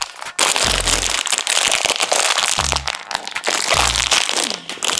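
A plastic Haribo Goldbears sweet packet crackling and crinkling loudly as it is handled and pulled open by hand.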